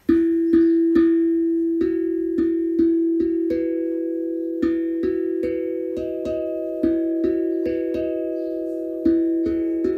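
Steel tongue drum cut from a thick-walled gas bottle, struck with a rubber-headed mallet: a slow melody of single ringing notes, about two a second with short pauses, over a low E drone tone that keeps sounding between strikes.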